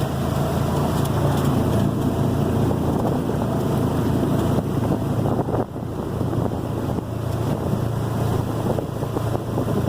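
Off-road side-by-side's engine running steadily under way through floodwater, with wind buffeting the microphone; the drone dips briefly about six seconds in.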